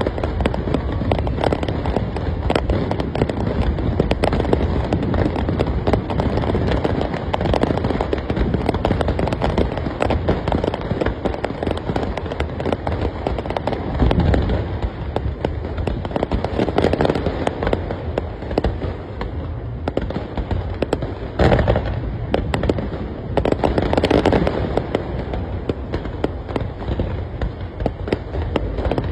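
Fireworks display: a dense, unbroken barrage of crackling bursts, with heavier booms standing out several times in the second half.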